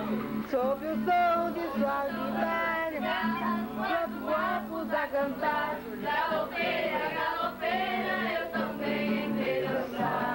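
Several voices singing a song together to an acoustic guitar.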